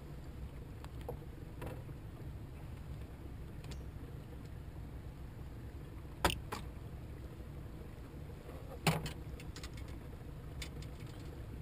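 Two sharp knocks about two and a half seconds apart, something striking the deck or hull of a small fibreglass fishing skiff, over a low steady rumble.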